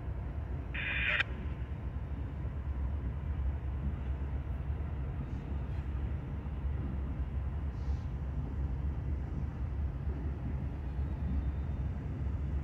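Low, steady rumble of a distant set of diesel locomotives approaching slowly. There is a brief hiss about a second in.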